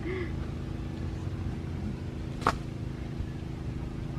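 A steady low motor hum, with one brief sharp squeak about two and a half seconds in.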